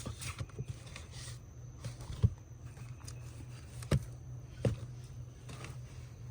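Books being handled and looked through: three light knocks and some soft rustling over a steady low hum.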